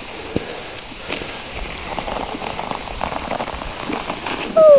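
Dogsled runners hissing and crackling over snow, with small scattered clicks, as the sled moves along the trail. Near the end comes a short, loud vocal call that falls and then rises in pitch.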